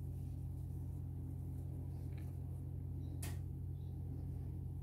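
A steady low hum with no other clear sound, apart from a single faint click about three seconds in.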